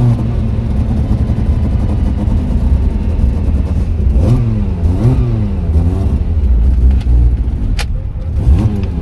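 VW 07K five-cylinder engine in a Porsche 944 running under way, its revs rising and falling several times about four seconds in and again near the end.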